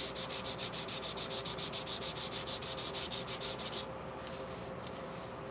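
Sandpaper rubbed by hand over a paper model part in rapid, even back-and-forth strokes that stop a little before four seconds in. The sanding roughens the surface so glue will hold.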